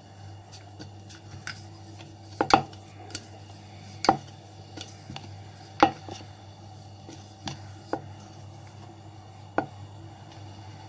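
A wooden rolling pin knocking and tapping on a wooden rolling board (chakla) while puri dough is rolled out: irregular sharp knocks every second or so, the loudest about 2.5, 4 and 6 seconds in, over a steady low hum.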